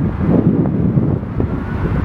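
Gusty wind buffeting the microphone: a loud, irregular low rumble that rises and falls with each gust.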